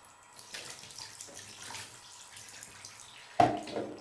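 Water poured from a cup over a beagle puppy in a bathtub, splashing and trickling onto its coat and the tub floor. A sudden loud thump near the end.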